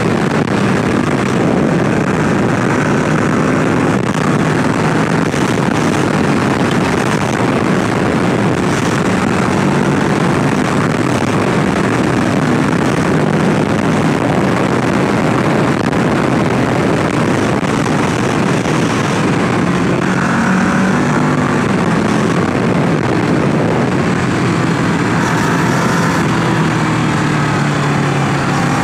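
Kawasaki Ninja 650's parallel-twin engine running at road speed, its note mostly buried under a steady rush of wind on the microphone and shifting in pitch now and then with the throttle.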